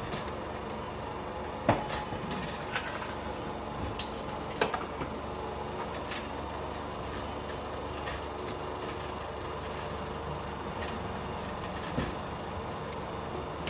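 Claw machine being played: a steady arcade hum with several sharp clicks and knocks, the loudest about two seconds in and another near the end.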